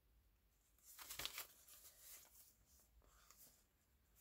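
Faint rustling and crinkling of an old, worn paper sewing-pattern envelope as it is handled and turned over, loudest about a second in, then a few softer rustles.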